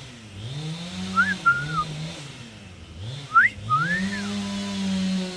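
Injured French Marans rooster making long, low moaning calls that rise and then hold steady, three or four times, with short high rising chirps over them: a distressed bird after an attack.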